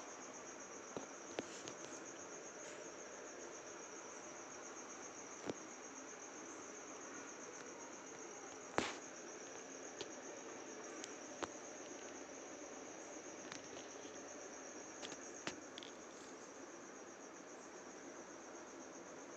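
A steady, high, finely pulsing trill like a cricket's, running on unbroken, with a few sharp clicks or taps scattered through it, the loudest about nine seconds in.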